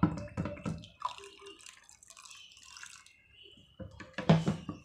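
A plastic stirring rod working liquid around in a glass beaker, giving small drips, splashes and light clinks. It is mixing freshly added water into a sulfonated castor oil (Turkey red oil) batch.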